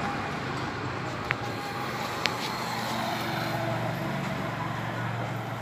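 Steady outdoor background noise with a low hum, like distant traffic, and two short sharp ticks, a little over a second in and again about a second later.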